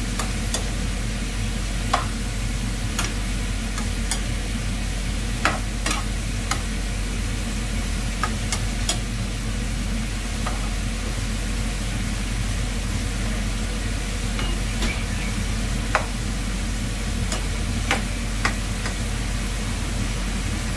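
Pork cubes sizzling in a frying pan, with a metal spoon scraping and clinking against the pan in scattered strokes as the meat is stirred, over a steady low hum.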